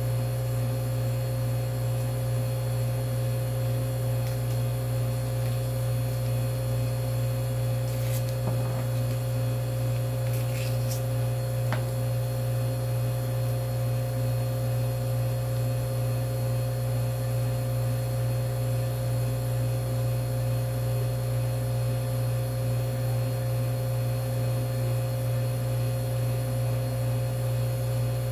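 Steady low hum of a freezer running as it cools down to temperature, with a steady higher tone over it. A few faint clicks of handling sound between about eight and twelve seconds in.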